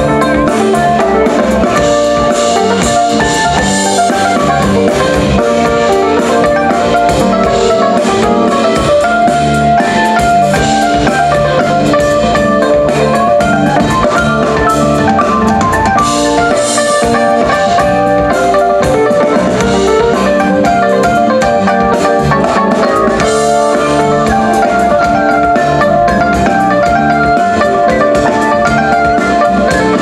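Folk-fusion band playing live: an instrumental passage with drums keeping a steady beat under melodic instruments.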